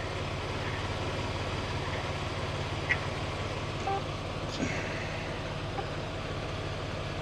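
Semi truck's diesel engine idling steadily, a low even rumble, with a few faint short chirps over it.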